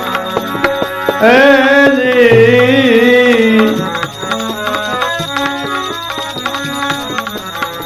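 Devotional bhajan music with tabla playing a steady rhythm under held drone tones. A wavering, gliding melodic line sounds for the first four seconds or so, after which the tabla strokes stand out.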